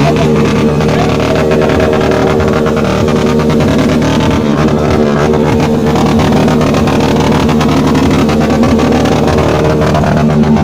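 Motorcycle engine running loud at high, steady revs, with a brief dip in pitch about halfway through.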